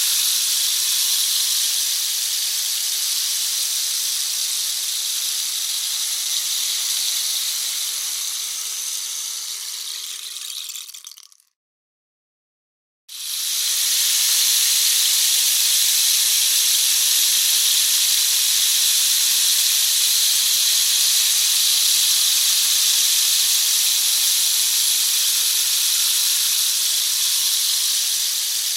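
Rain stick pouring, a steady rushing hiss of pebbles trickling down through the tube. A little over ten seconds in the pour dies away into a second or so of silence, then a fresh pour starts and runs on steadily.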